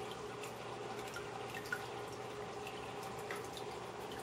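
Water trickling steadily in an aquarium, with a few small drip plinks, one about a second and a half in and another a little past three seconds, over a faint steady hum.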